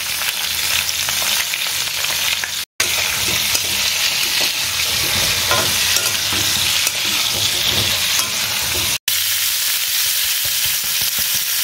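Pointed gourd (potol) pieces frying in hot mustard oil in a pan: a steady sizzle, with the vegetables being stirred. The sound drops out for a moment twice.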